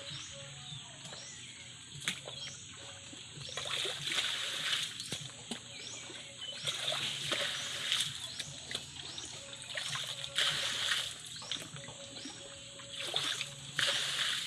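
Water being bailed out of a muddy pit with a plastic bucket: scoops of water poured out and splashing onto the ground, about six pours a few seconds apart.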